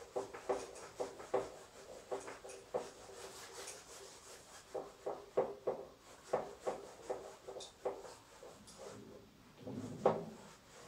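Whiteboard being wiped with a handheld duster: a run of short rubbing strokes, about three a second, in groups with brief pauses between them.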